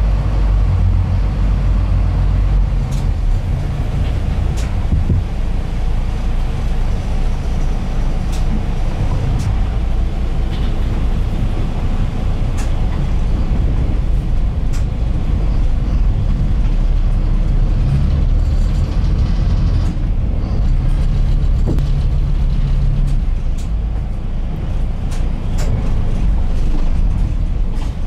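Small passenger ferry's engine droning low inside the cabin while the boat comes alongside the pier, the drone easing and rising in steps as it manoeuvres, with a few faint clicks and knocks.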